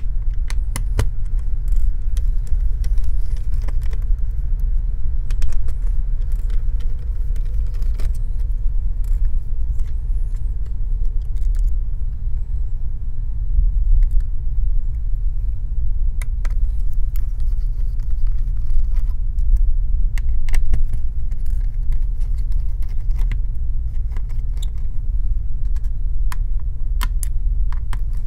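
Scattered small clicks and taps of a precision screwdriver and screws as a laptop's CPU fan and heatsink are unscrewed and handled, over a steady low rumble.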